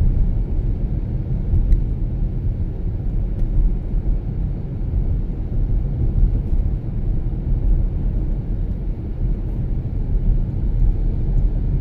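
Car driving through snow: a steady low rumble of engine and tyre noise.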